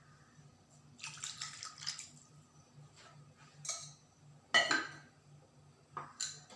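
Water being poured into a pot of simmering chicken curry in several short splashing pours, the loudest about halfway through, with light clinks of the metal pot.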